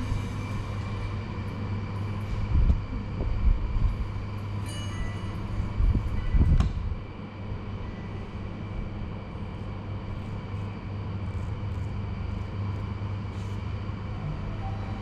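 A steady low electric hum, with two short bursts of low thumping, about two and a half seconds and six seconds in.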